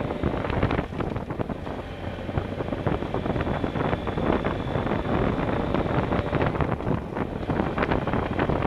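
Motorcycle riding along a gravel road, heard from a helmet-mounted camera: wind rushes over the microphone over the running engine and the tyres crunching on the gravel, with a steady crackle of small stones.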